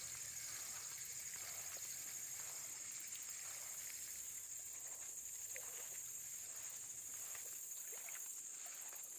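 Faint sloshing and small splashes of water from wading in a shallow creek, over a steady high-pitched hiss.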